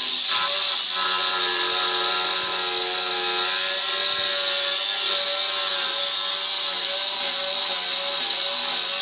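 Handheld angle grinder cutting into a granite countertop along the sink cutout line: a steady motor whine over a high, hissing grinding noise.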